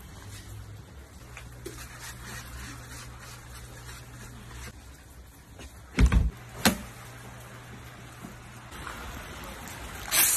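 A low steady hum, broken by two short loud thumps about six seconds in, the second half a second after the first.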